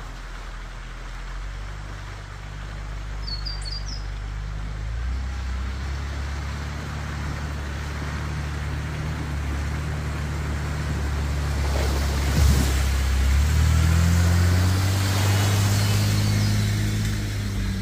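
A Toyota 105 Series LandCruiser drives slowly through a shallow creek crossing. Its engine hum grows steadily louder as it approaches and passes close by, with water swishing and splashing around the tyres in the second half. A few short bird chirps sound near the start.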